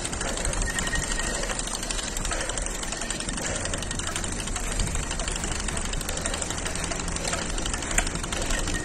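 Riding noise from a mountain bike on a rough path: a steady rumble of tyres and wind on the microphone with a fast, continuous rattle and a couple of sharper clicks.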